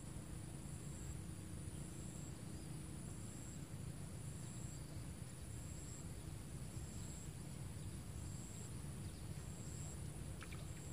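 Insects calling: a steady high-pitched trill, with a second insect chirping in regular pulses about once a second, over a low steady outdoor rumble.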